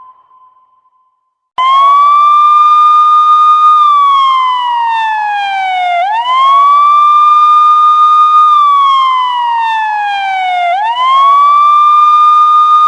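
Wailing siren sound effect, starting suddenly about one and a half seconds in. The pitch sweeps up quickly, holds, then slides slowly down, and the cycle repeats about every four and a half seconds.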